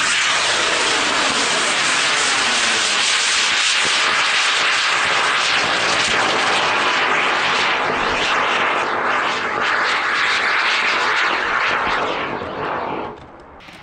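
Model rocket motor burning through a long climb: a steady, loud rushing roar that fades and cuts off about 13 seconds in.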